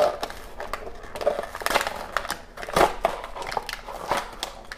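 Clear plastic toy packaging crackling and snapping as it is pulled open by hand, in irregular sharp crackles.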